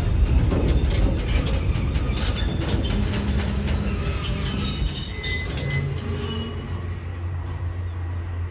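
Freight train of container flat wagons rolling slowly past close by, its wheels clicking over the rail joints and its brakes squealing in thin high tones as it slows. The rumble dies down after about six seconds as the train comes to a stand to wait in the passing loop.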